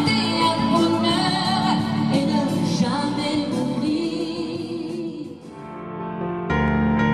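A woman singing a song with instrumental backing; the song fades out about five seconds in, and a new piece of music starts suddenly a second or so later.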